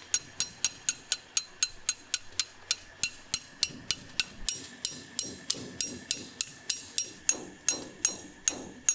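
A steel knife tapped on its back again and again with a second blade, about four sharp metallic clinks a second, each with a short ring. The blows drive the upright blade down through the tough scaled skin of a crocodile's tail, and the later ones carry a duller knock.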